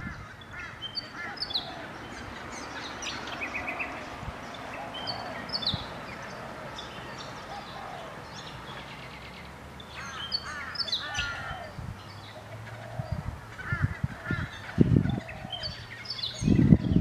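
Several birds chirping and calling, short sharp notes and quick repeated trills. A few low thumps near the end.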